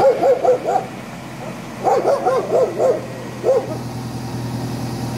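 A dog barking in quick runs of four or five short yaps, a pause of about a second between runs and a single bark near the middle, over a steady low hum.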